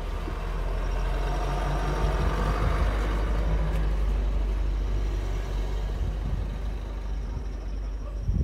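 A motor vehicle's engine rumble swells to its loudest about three seconds in and then fades, over a steady low rumble.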